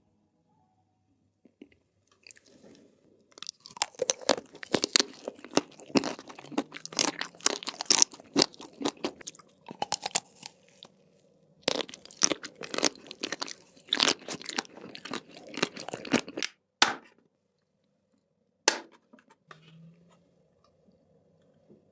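Close-miked chewing of crunchy food, ASMR style: dense crackling crunches for about thirteen seconds with a short break in the middle, then a pause and a single crunch near the end.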